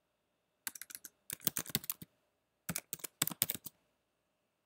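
Computer keyboard typing: two quick bursts of keystrokes with a short pause between them.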